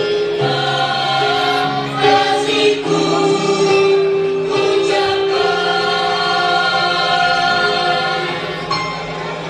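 Music with choir-like singing on long held notes, a little quieter near the end.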